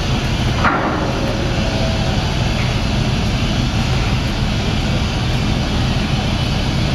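Docked car ferry's machinery running with a steady low drone.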